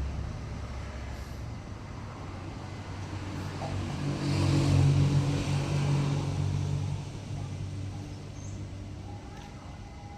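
A motor vehicle's engine passing by, its low hum rising to its loudest about halfway through and then fading away.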